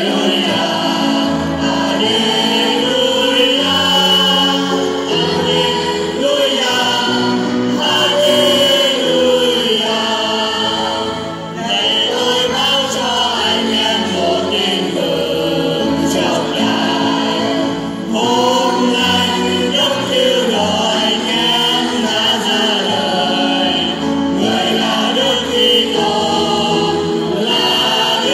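Church choir singing with instrumental accompaniment: the Gospel acclamation that follows the second reading at Mass.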